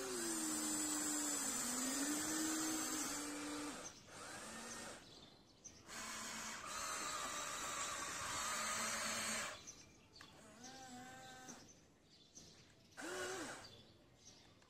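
Electric gear motors of a Huina 1593 RC excavator whirring in two stretches of about three seconds each as its arm and bucket work through the sand, the pitch wavering with the load. A few short animal calls come in the quieter gaps near the end.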